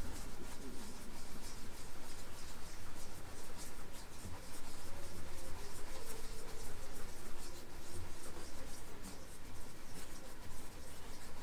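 Rotary table being turned slowly by hand: faint scratchy rubbing and light ticking from the handwheel and worm drive, over a low steady hum.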